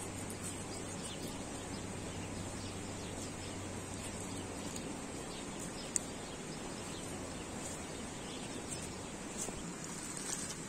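Outdoor ambience: a steady, even rush with faint bird chirps, and one sharp click about six seconds in.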